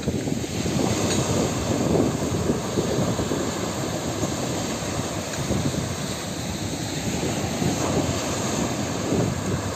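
Surf washing onto a sandy beach, mixed with wind buffeting the microphone in an uneven rumble.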